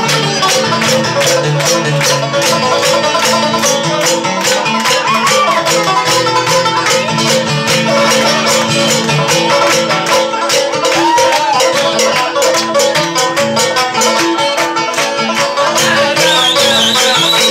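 Banjo music with fast, steady picking of a rapid run of plucked notes.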